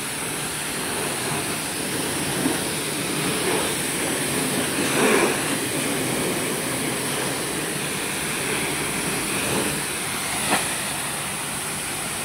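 Electric high-pressure plunger washer pump running steadily, with the hiss of its water jet from the spray gun blasting a scooter's wheel and bodywork.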